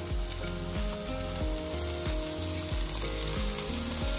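Chicken pieces and green curry paste sizzling steadily as they fry in coconut-milk oil in a pan; the paste is well fried, with the oil risen to the top and separating.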